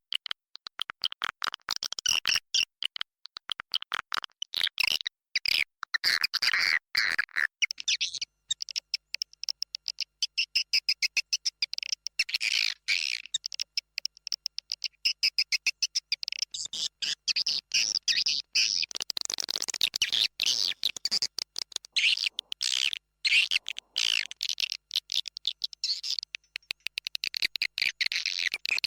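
Edible-nest swiftlets twittering in a nesting house: a dense, rapid stream of high chirps and clicks from many birds, played as a call sound to lure swiftlets to roost.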